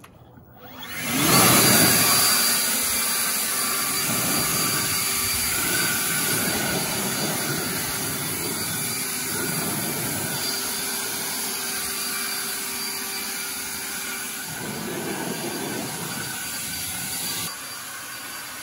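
Battery-powered EGO leaf blower spinning up about a second in, then blowing steadily: a loud rush of air with a faint whine, clearing twigs and debris off garden-railway track. It drops a little in level near the end.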